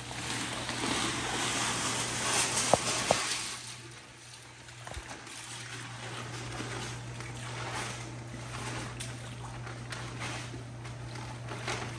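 Pool salt poured from a 40-pound bag into swimming-pool water: a steady pouring hiss, louder for the first three seconds or so, then easing off. A steady low hum runs underneath.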